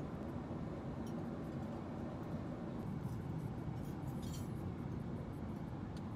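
Steady airliner cabin drone, with a few faint light clinks of a table knife against a butter tub and dishes.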